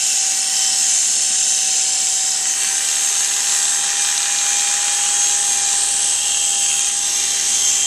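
Electric barber's hair clippers running steadily while cutting short hair at the side of the head: a constant buzz with a faint steady whine.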